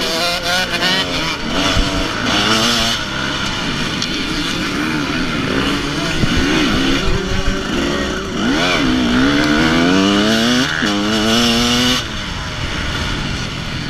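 Dirt bike engine heard close up at hard throttle, its pitch climbing and dropping again and again as it shifts up through the gears, with a long climb that ends in an abrupt throttle-off near the end; other motorcycles run alongside.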